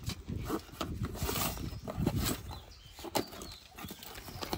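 Cardboard shipping box being cut open with a key and its flaps pulled back: irregular scrapes, knocks and rustles of cardboard and packing tape, with a sharp click about three seconds in.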